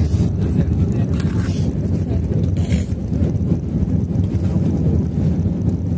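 Cabin noise of an Airbus A320-family airliner rolling down the runway just after landing: a loud, steady low rumble from the turbofan engines and the wheels on the runway, with a few brief hisses.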